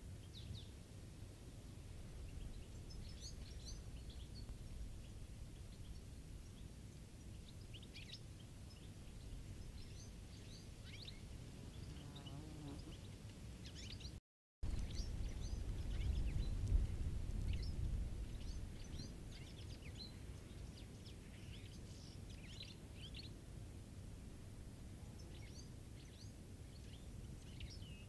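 European goldfinches giving short, high, twittering calls, scattered irregularly over a low steady rumble. The rumble cuts out briefly about halfway through, then swells for a few seconds.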